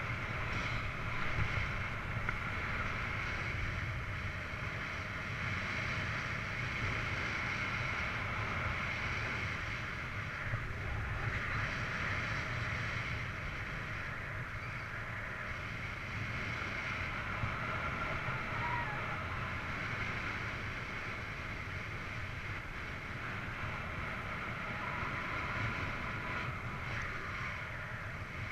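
Steady rush of airflow over the microphone of a paraglider in flight, a constant low rumble with a hissing band above it.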